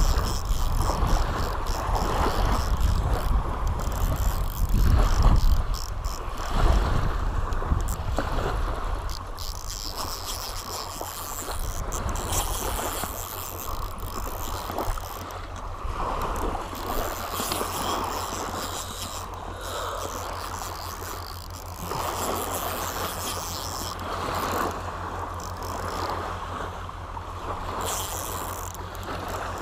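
Wind buffeting the microphone over small waves lapping on a sandy shore, gusting hardest in the first several seconds and then easing, while a baitcasting reel is cranked to fight a fish.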